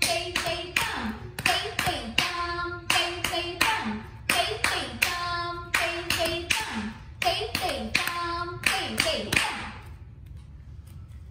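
Bharatanatyam Thattadavu footwork: bare feet stamping on a wooden floor in a steady rhythm, sharp strikes in groups, with a voice chanting the rhythm syllables along with them. The stamping and chanting stop about ten seconds in.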